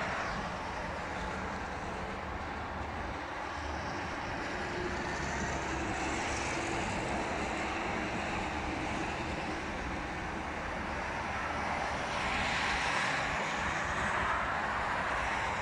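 Highway traffic noise: a steady rush of car tyres on the snowy road, swelling about two-thirds of the way through as vehicles pass closer.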